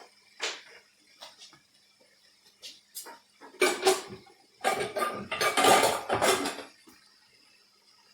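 Dishes and metal utensils clinking and clattering: a few separate clinks, then about three seconds of dense rattling and clanking about halfway through.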